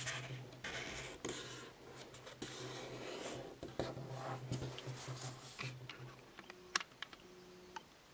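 Card stock rustling and sliding under the hands as it is folded in half and the crease is pressed and smoothed flat, with a few light taps; the handling dies down near the end.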